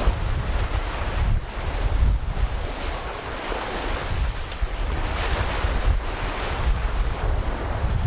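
Wind buffeting the microphone with a heavy low rumble, over waves washing against the shore in swells that rise and fall every second or two.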